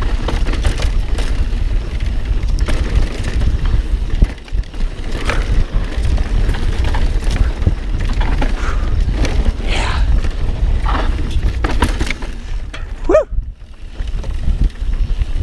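Mountain bike riding over rough, rocky trail: a steady rumble of wind and rolling noise on the bike-mounted or helmet camera, with frequent clattering knocks from the tyres and bike hitting rocks, and a brief squeal about thirteen seconds in.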